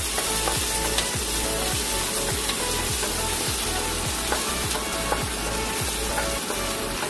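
Chopped garlic, ginger, green chillies and cumin seeds sizzling in hot ghee in a stainless steel kadhai. A wooden spatula stirs them steadily, with soft strokes about twice a second.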